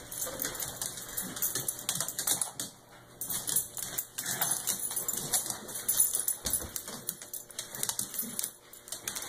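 A dog chewing and gnawing at a plush unicorn slipper, with irregular clicking and rustling.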